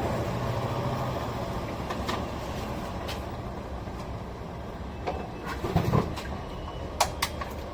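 KTM Duke 390 motorcycle engine running and winding down as the bike slows to a stop, getting gradually quieter. A few sharp clicks and knocks come in the last couple of seconds.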